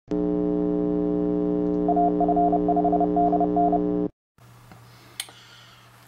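A steady electronic hum of several tones, with a higher beeping tone keyed on and off over it in a Morse code rhythm of short and long beeps from about two seconds in. Both stop suddenly at about four seconds, leaving faint room noise and a single click.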